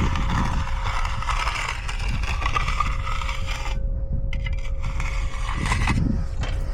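Hand tools scraping and rubbing over wet concrete as it is spread and worked, over a steady low rumble.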